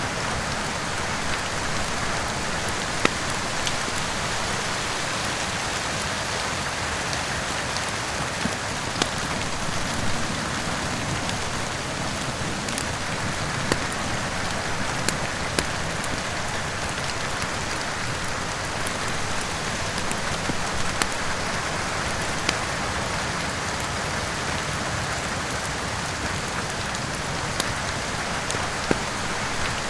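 Steady heavy rain, with scattered sharp crackles and pops of a wood fire every few seconds.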